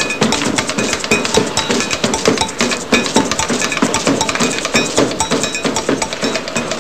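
Fast, dense percussion playing: a rapid stream of drum strikes mixed with short, ringing, bell-like metallic tones.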